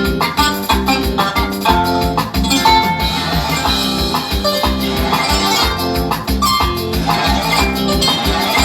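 Upbeat Latin American dance music with a steady drum beat and a bright melody of short, quickly repeated notes.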